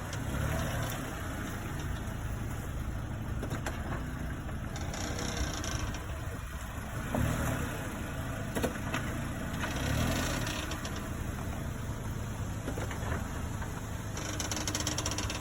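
An 8th-generation Honda Accord running, with a steady low rumble and a few short clicks or creaks now and then: the squeak the owner is trying to pin down.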